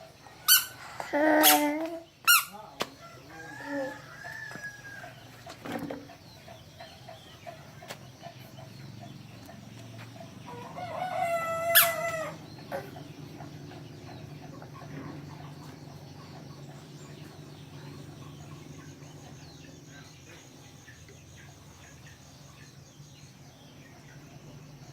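Chickens clucking, with a few sharp knocks in the first few seconds, and a rooster crowing once about ten seconds in, a long call held for about two seconds that cuts off sharply; after it only a steady low hum remains.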